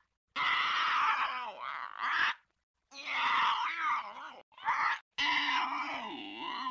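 Lo-fi synthetic cartoon creature vocal effects: a string of separate cries with a wavering, warbling pitch, each under two seconds long, cut apart by short gaps of dead silence.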